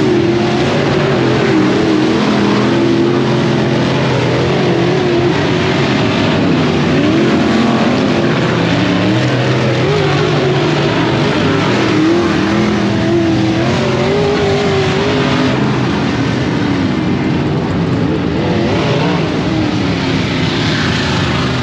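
Several open-wheel dirt modified race cars' engines running laps around a dirt oval, engine pitch rising and falling continuously as the cars go down the straights and back off into the turns.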